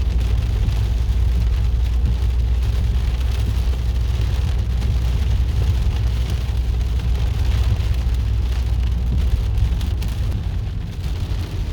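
Heavy rain pouring down and hitting surfaces, with a steady low rumble underneath.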